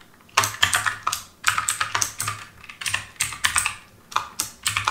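Typing on a computer keyboard: a quick run of sharp keystrokes in short bursts, about five a second, with brief pauses between the runs.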